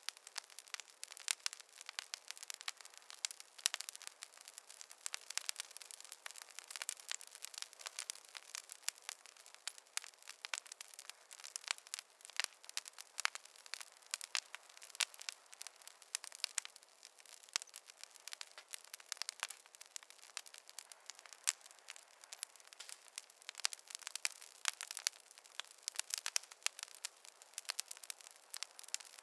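Wood campfire crackling: a dense, irregular run of sharp snaps and pops over a light hiss.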